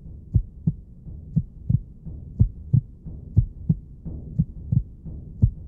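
Human heartbeat: a steady lub-dub, two low thumps about a third of a second apart, repeating about once a second over a low hum.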